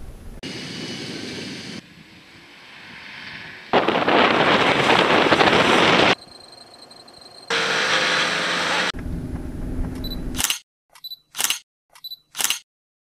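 Brief snatches of off-road vehicle sound cut abruptly one after another, the loudest a couple of seconds of noisy engine and tyre sound in the middle, then a run of quick camera-shutter clicks near the end.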